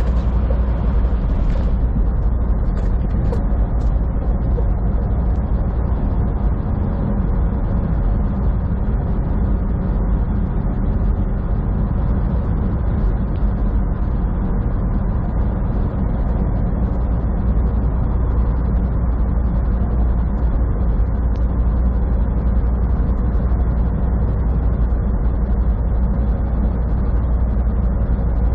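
Semi-truck cruising at highway speed, heard from inside the cab: a steady low engine drone mixed with road and tyre noise.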